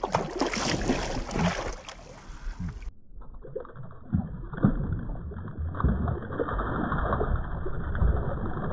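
Water sloshing and splashing around a landing net held in a shallow river as a caught brown trout thrashes in it, with a big splash near the end.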